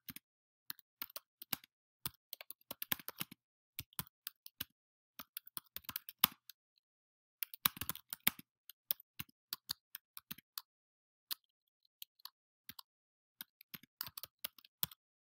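Typing on a computer keyboard: irregular runs of keystroke clicks broken by short pauses.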